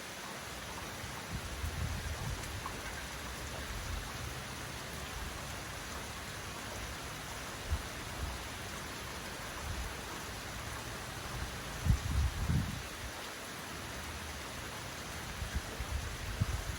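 Heavy rain pouring steadily, with strong wind gusting in low rumbling swells, the strongest about twelve seconds in and again near the end.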